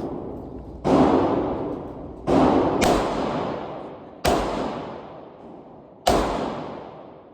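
Glock pistol firing single shots, about four in steady succession every one and a half to two seconds with another right at the end, each shot ringing out in a long fading echo.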